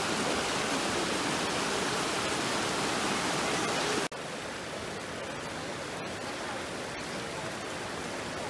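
Mountain creek rushing over rocks and small cascades, a steady wash of water. About four seconds in it cuts abruptly to a quieter, gentler flow.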